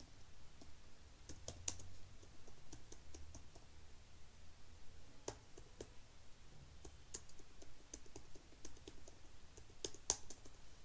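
Typing on a computer keyboard: a run of irregular keystrokes, a few of them louder, with a faint low hum underneath.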